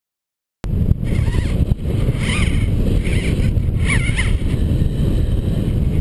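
Wind rushing over a helmet-mounted GoPro's microphone during a paraglider flight: a loud, steady low rumble of buffeting. It starts abruptly about half a second in and cuts off just after the end.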